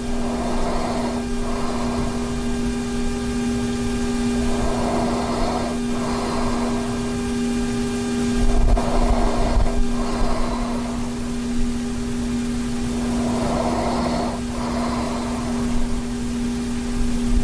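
A sleeping man's heavy, noisy breathing: each breath in and out is a pair of rushes, about one breath every four seconds. A steady hum runs underneath.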